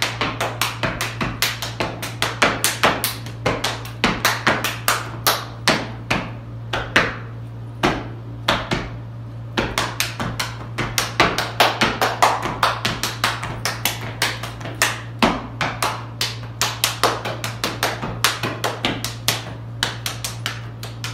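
Step routine: rapid, rhythmic stomps of sneakers on a concrete floor mixed with hand claps and slaps on the body, in quick uneven patterns.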